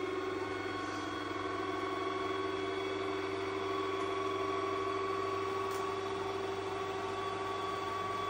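Ecovacs Deebot robot vacuum running with a steady motor hum while it reverses into its docking station.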